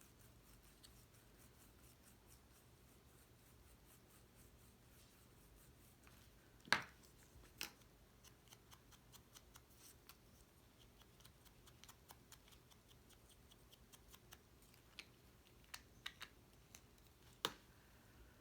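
Quiet handling of cut paper pieces and crafting tools on a table: faint scratching with scattered small clicks and taps, the sharpest one about seven seconds in.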